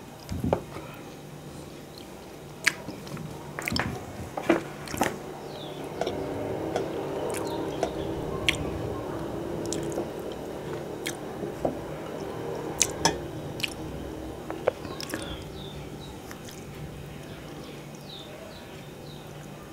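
A hand mixing rice with fish curry on a metal plate: soft wet squishing, with scattered sharp clicks of fingers and nails against the plate.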